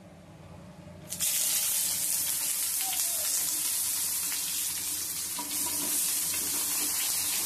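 Brinjal (aubergine) slices dropped into hot mustard oil in a frying pan: the oil starts to sizzle suddenly about a second in and keeps up a steady hiss. The sizzle grows a little louder about five seconds in, as more pieces go in.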